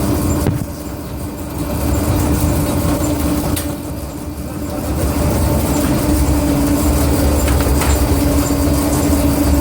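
Komsilaj silage baling and packing machine running with a steady mechanical hum over a low rumble, dipping in level twice in the first half.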